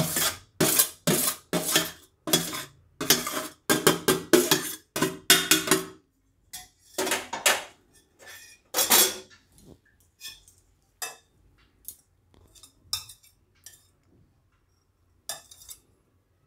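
Cooked rice being scraped and tapped out of a shallow steel dish into a glass bowl: quick clinks and scrapes of steel against steel and glass, close together for about six seconds, then fewer, scattered knocks.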